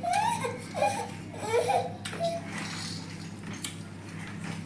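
A small child's high-pitched fussing and babbling, in short rising and falling cries through the first two seconds. Then softer, with faint clicks and taps of fingers working rice on steel plates.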